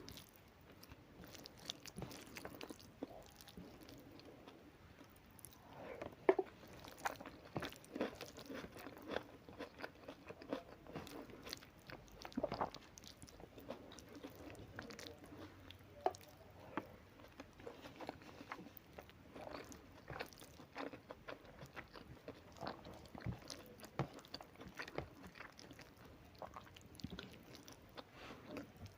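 A person chewing and biting food close to the microphone, with frequent small irregular crunches and mouth clicks.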